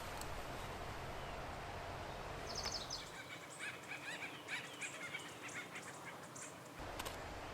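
Acorn woodpeckers calling: a burst of rapid, nasal, chattering notes that starts about three seconds in and stops shortly before the end.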